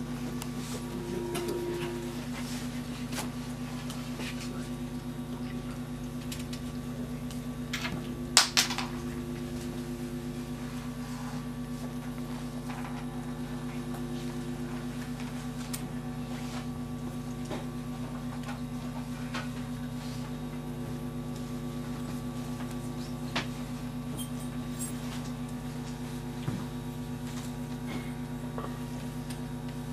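A steady electrical hum made of several held tones, with a few sharp clicks or knocks on top, the loudest about eight seconds in.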